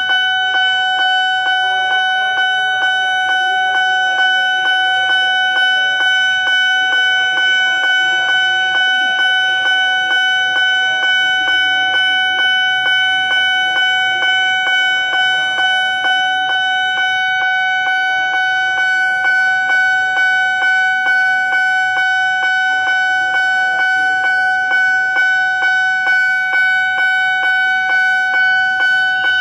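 Railway level-crossing warning bell sounding continuously while the barrier is down. It repeats evenly at somewhat under two strokes a second over a held ringing tone.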